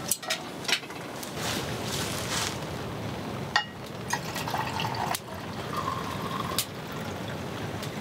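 Liquid poured from a glass bottle into a cup, with a filling sound that starts and stops twice in the second half. A few light clicks come in the first second.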